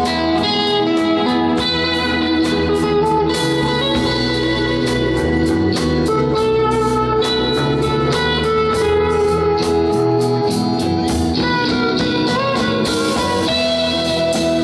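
Live instrumental band music: an electric guitar plays a slow melody of held notes over bass and a steady drum beat.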